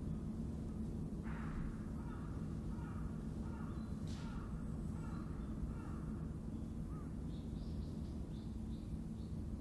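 A crow cawing repeatedly in a quick series, then a few short, high chirps from a small bird near the end, over a steady low background rumble.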